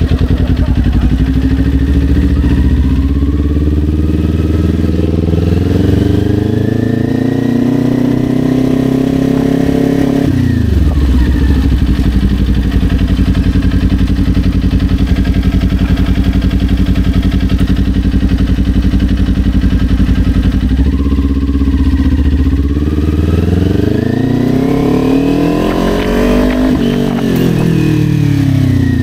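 Kawasaki Ninja 400's parallel-twin engine under way, its pitch rising for several seconds as the bike accelerates, then dropping sharply when the throttle closes about ten seconds in. It runs low and steady for about ten seconds, rises again and falls off near the end.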